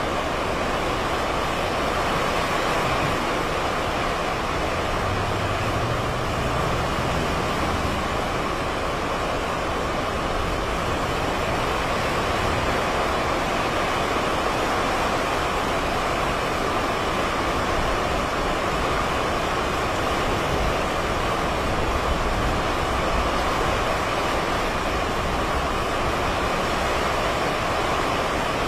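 Steady rush of strong hurricane wind, with a faint low hum rising briefly about six to eight seconds in.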